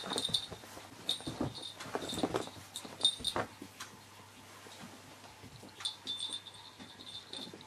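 Small bell on a cat's collar jingling in short bursts as the cat moves, with soft knocks and scuffs from the cats at a wooden sliding door in the first few seconds.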